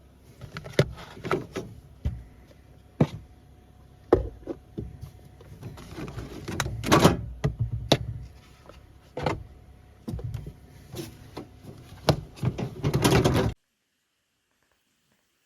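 Food containers and packaging being handled and opened: irregular clicks, knocks and rustles of lids and plastic, stopping abruptly a couple of seconds before the end.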